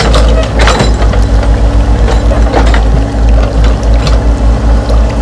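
Radio-controlled toy excavators working, with a steady low mechanical hum and rumble. Scattered clicks and scrapes come from the buckets and the gravel.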